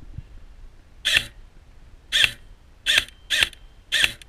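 An airsoft gun firing five single shots, short sharp pops about a second apart at first, then quicker toward the end.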